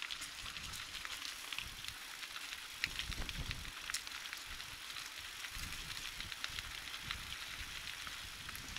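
Mountain bike rolling along a forest road: the tyres crackle irregularly over grit and small debris, with wind rumbling on the microphone.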